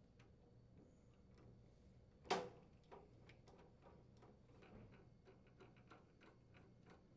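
A Phillips-head screwdriver tightening a mounting screw into a plastic appliance grill: one sharp click a little over two seconds in, then a run of faint, irregular ticks as the screw is turned.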